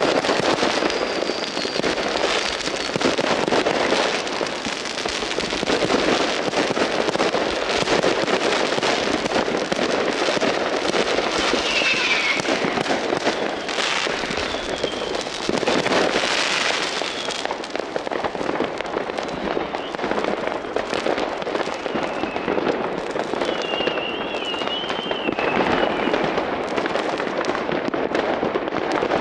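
Dense, continuous New Year's Eve fireworks: firecrackers and rockets cracking and banging without a break, with a few faint whistles among them.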